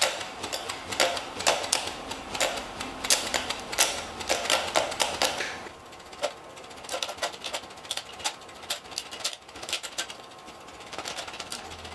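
Beer bottle cap spun on a twisted string as a whirligig saw, its spinning edge grinding against chocolate in a rapid, irregular run of sharp clicks and ticks over a hiss. The clicking is densest in the first half and thins out after about five and a half seconds.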